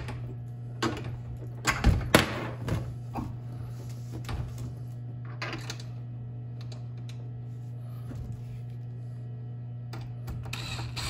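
Hand assembly of a metal step-stool frame: scattered clicks and knocks of screws and steel tubing being handled and lined up, the loudest a cluster of sharp knocks about two seconds in, over a steady low hum. Near the end a cordless drill starts to run.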